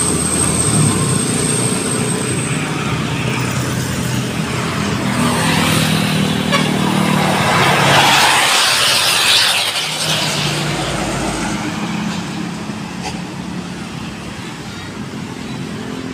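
Road traffic with a heavy vehicle passing: engine noise swells to a peak about halfway through, then fades away.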